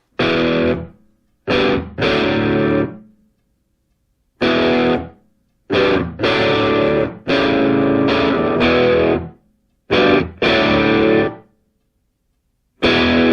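Distorted electric guitar music: loud chords struck in short blocks, broken by complete silences.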